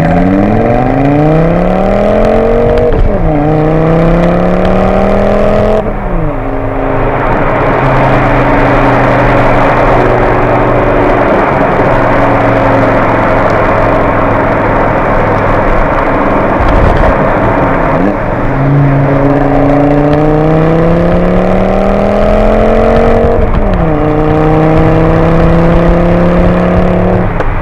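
Volvo C70's inline five-cylinder engine pulling hard through the gears, its note climbing steadily and dropping sharply at each upshift. In the middle it holds a steadier note under a broad rush of noise, then climbs through two more gears near the end.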